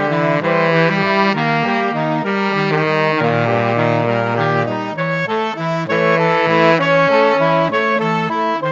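Background music led by a saxophone-like brass or reed melody over steady sustained bass notes.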